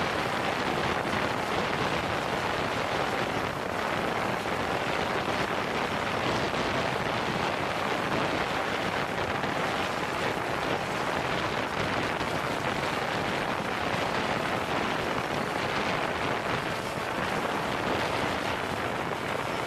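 DJI Phantom 3 4K quadcopter's propellers running, heard from a camera slung directly beneath them: a steady, dense rush of rotor noise and downwash buffeting the microphone.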